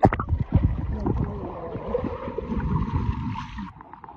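Water sloshing and gurgling around a phone held half underwater at the surface of a swimming hole, muffled, with irregular knocks. It starts abruptly and eases off near the end.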